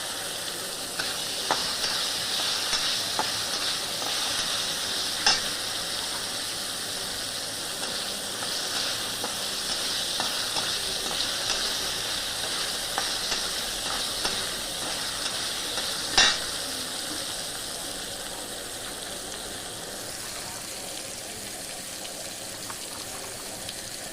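Food sizzling in a little oil in a kadai while it is stirred, with small scrapes and two sharp knocks of the utensil against the pan, about five and sixteen seconds in. The sizzle eases off somewhat in the last few seconds.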